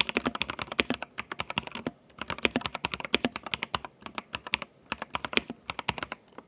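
Typing sound test on a Dareu EK75 75% mechanical keyboard with plastic keycaps: rapid, even keystroke clicks in runs, with a brief pause about two seconds in.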